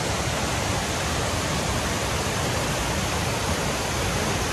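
Fountain water falling and splashing: a steady, even rush with no breaks.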